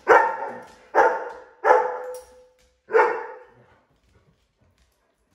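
Yellow Labrador retriever barking four times in about three seconds, loud and sharp.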